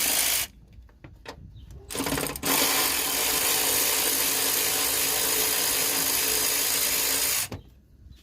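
Impact wrench running on 10 mm bolts in bursts: a run that stops about half a second in, a short blip about two seconds in, then a steady run of about five seconds that cuts off suddenly.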